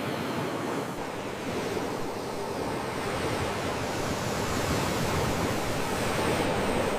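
Sea waves washing in: a steady rush of surf that swells a little louder over the last few seconds.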